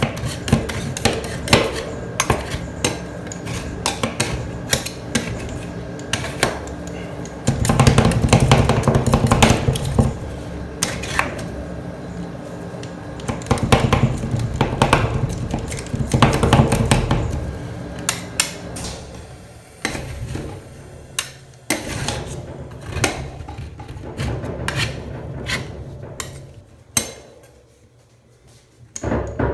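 Two steel spatulas chopping and scraping ice cream mix on a stainless steel cold plate: rapid sharp metallic taps of the blades striking the pan, with stretches of denser scraping and chopping. The taps pause briefly near the end.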